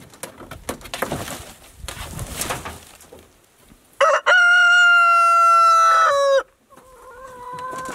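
Rooster crowing: one long, loud crow of about two seconds, held on one pitch and dropping at the end, after a few seconds of soft rustling and clicks. A second, fainter crow starts near the end.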